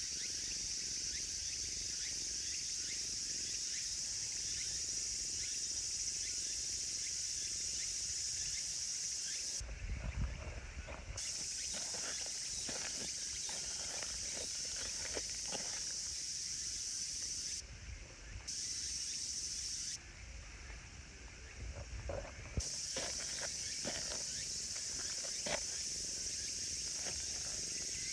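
Steady high-pitched insect chorus, breaking off abruptly a few times, with scattered light rustles and handling knocks.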